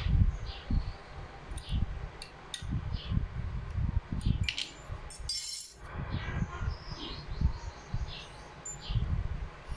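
Small metal pistol parts being handled: scattered light clicks and clinks over dull knocks of parts set down on a surface, with a brief scraping hiss about five and a half seconds in.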